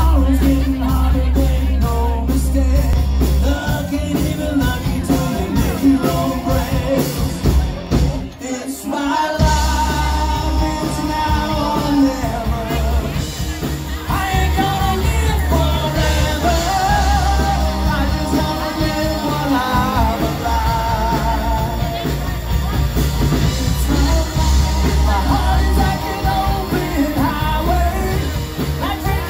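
Live rock band playing loud in a bar: heavy bass and drums, electric guitar, and a male singer. The band cuts out for about a second, eight and a half seconds in, then comes straight back in.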